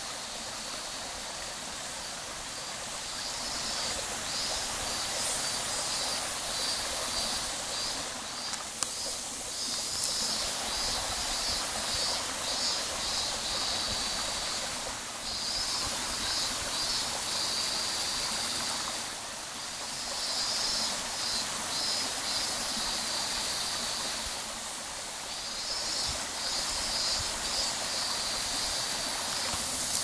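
Small mountain stream flowing over rocks, a steady rush of water, with a high pulsing buzz running through it.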